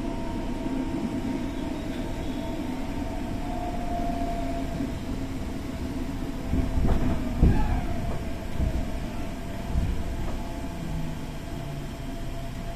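Interior running sound of a Tokyo Metro 6000 series electric train (set 6029F, Hitachi two-level VVVF inverter) slowing into a station: a steady electric whine from the inverter and traction motors over the rumble of the wheels. A few heavy thumps come from the running gear around the middle.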